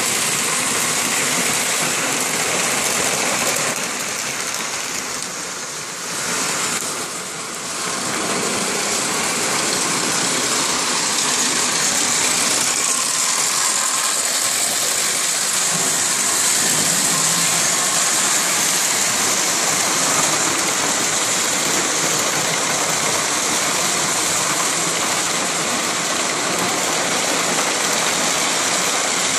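Lionel O-gauge model trains running on the layout's three-rail track: a steady rush of motors and wheels, dipping for a few seconds about five seconds in.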